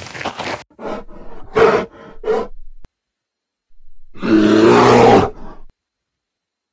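Cartoon bear sound effect: quick running footsteps that stop within the first second, then a few short grunts, then one loud, long roar of about a second near the middle.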